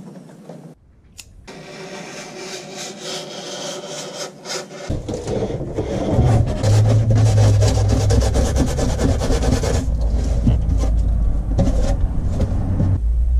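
Knife cutting through foil-faced polyiso foam insulation board in quick scratching, sawing strokes. A heavy low rumble joins about five seconds in.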